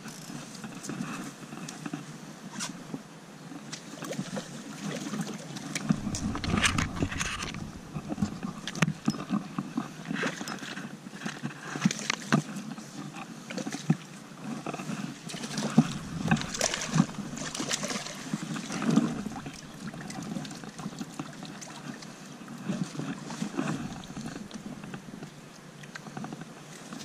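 A hooked wild brown trout splashing at the surface and being drawn into a landing net, with irregular splashes, knocks and handling rustle close on the chest-mounted camera and a few low rumbling stretches.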